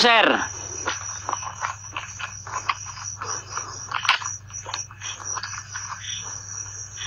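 Night insects, crickets, trilling steadily at a high pitch, with irregular sharp clicks and crackles over the top and a low steady hum beneath.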